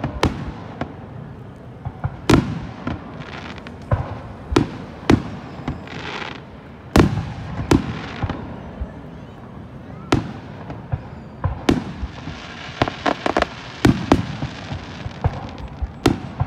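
Aerial firework shells bursting, a dozen or more sharp booms at irregular intervals, with a quick run of bursts and crackling about thirteen seconds in.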